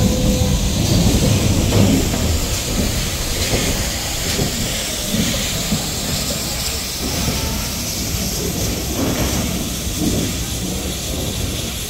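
GWR 4200 class 2-8-0 tank steam locomotive moving slowly at low speed, with a low rumble and steam hissing. It is loudest as it passes close in the first couple of seconds, then a little fainter as it draws away.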